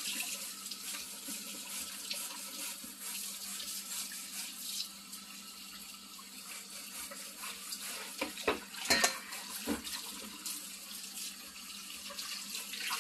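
Kitchen tap running steadily, an even hiss of water, with a few sharp knocks about eight to ten seconds in.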